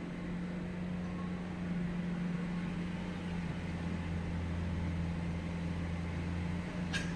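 Mini excavator's engine running steadily with an even low hum. There is a brief click near the end.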